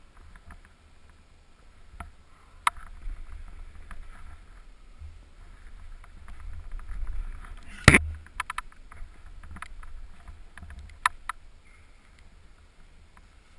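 Climbing sounds close to a helmet camera: hands and shoes scuffing and tapping on the wall and holds, with scattered clicks and one sharp knock about eight seconds in.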